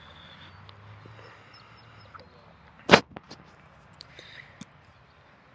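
A football makes one sharp smack about three seconds in, as it is caught or strikes something. A few faint clicks follow.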